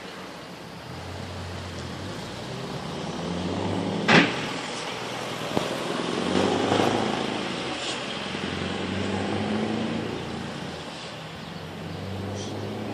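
Scania R620's V8 diesel pulling away, its note swelling over several seconds and then easing off. A sharp crack comes a little after four seconds in.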